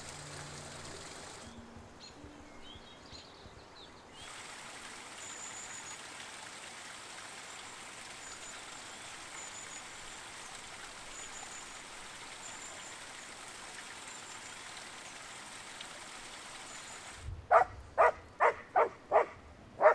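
Steady rush of a mountain stream with small birds chirping faintly. Near the end a dog barks about six times in quick succession, much louder than the water.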